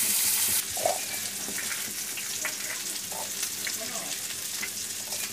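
Peeled garlic cloves and onion pieces tipped from a steel plate into a steel bowl, making scattered light clicks, over a steady sizzling hiss.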